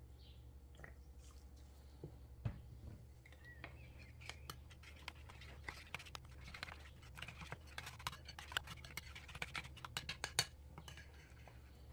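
A spoon stirring a thick yogurt-and-spice marinade in a ceramic bowl, clicking and scraping against the bowl in quick, irregular strokes that build from about four seconds in. A steady low hum runs underneath.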